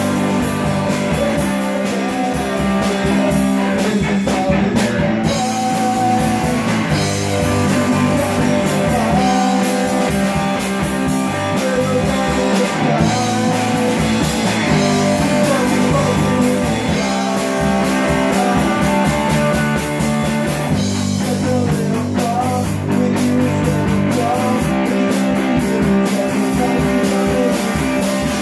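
A rock band playing live: electric guitar and bass guitar over drums, loud and steady.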